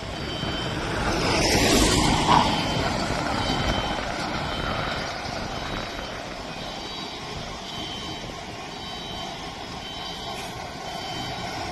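Self-loading concrete mixer truck's engine running, with its reversing alarm beeping at a steady pace; the engine noise swells louder about two seconds in.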